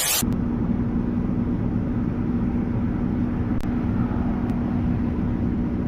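A steady mechanical running sound: a constant low hum with one held tone over a rushing noise. It starts abruptly with a short burst.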